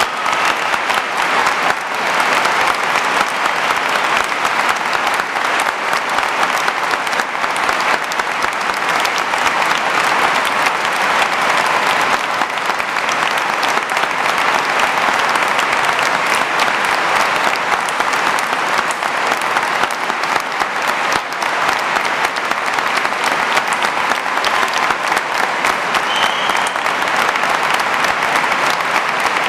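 A large crowd applauding steadily, many hands clapping at once in a dense, unbroken patter that holds at the same level throughout.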